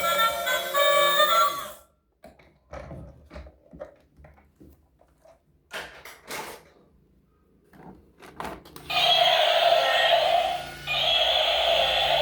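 Music stops, followed by several seconds of scattered small clicks and knocks. Near the end a loud steady tone starts, sounding in blasts about two seconds long with brief breaks between them.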